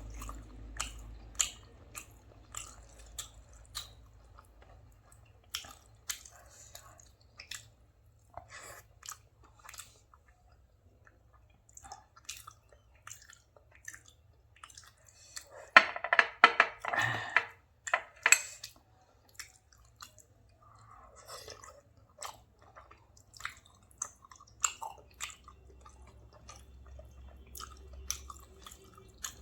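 Close-miked chewing and mouth sounds of a person eating, a string of short wet smacks and clicks, with a louder, denser burst of chewing and crunching about sixteen to eighteen seconds in.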